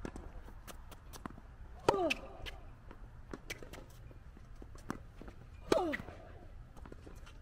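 Tennis rally on a hard court: two loud racket strikes on the ball, about two seconds in and near six seconds, each followed by a short grunt that falls in pitch. Fainter knocks of the ball bouncing and being hit from the far side come in between.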